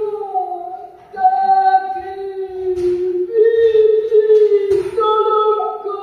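Women's voices singing long held notes, the melody moving to a new pitch every second or two.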